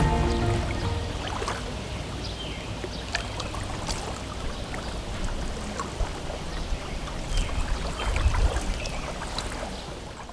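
Background music fades out in the first second or so. Lake water then laps and trickles with small splashy ticks, with a low rumble underneath.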